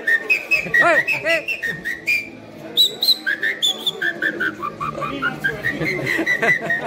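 Shrill whistled notes: a rapid string of short high chirps and trills that step up and down in pitch, with a couple of quick up-and-down swoops about a second in.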